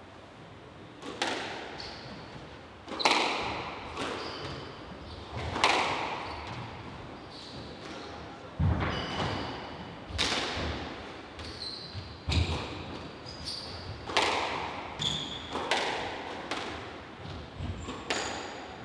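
A squash rally: the ball is hit hard by the rackets and slams off the court walls in knocks about every one and a half to two seconds, each echoing around the court. Short high squeaks of court shoes on the wooden floor come between the shots.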